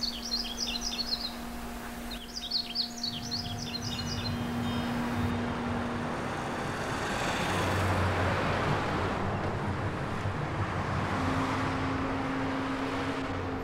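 Small birds chirping in two quick twittering runs during the first few seconds. Then a car drives past, its road noise rising to a peak about eight seconds in and fading away.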